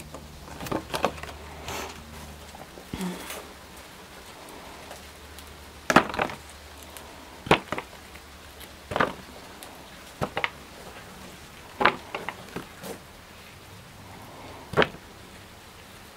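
Cherry tomatoes being snapped off the vine and dropped into a plastic punnet: a series of short, sharp clicks and taps every second or two. Light rain on the greenhouse can be heard in the background.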